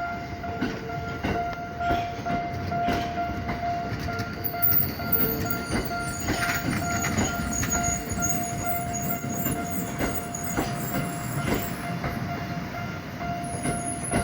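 Tokyo Metro Ginza Line train passing over a level crossing: wheels knocking over the rail joints, with a high-pitched wheel squeal from about four seconds in. A steady ringing tone from the crossing warning runs underneath throughout.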